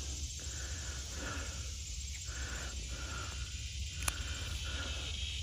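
Insects chirping in a steady pulsing rhythm outdoors, with one sharp snip of garden scissors cutting a weed stem about four seconds in.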